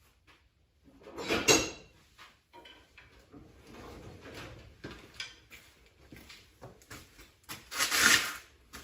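Steel crowbar scraping and knocking against the rubber exhaust hanger and exhaust under a 2001 Chevrolet Suburban, as it is worked in to pry the old hanger off. Two louder scrapes, about a second in and near the end, with lighter knocks and scrapes between.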